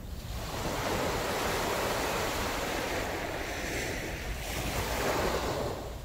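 Small waves breaking and washing up a sandy beach: a rush of surf that swells about half a second in and surges again near the end, with wind rumbling on the microphone.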